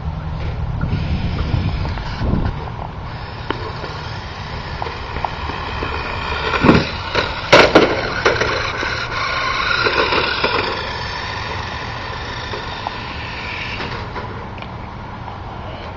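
Toy remote-control car's small electric motor whining, its pitch shifting as it drives, with two loud clattering knocks about seven seconds in as the car hits the ground off the ramp.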